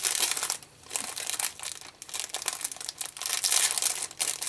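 Clear plastic zip-top bag crinkling in the hands as it is folded, pressed flat and closed, with a brief lull a little over half a second in.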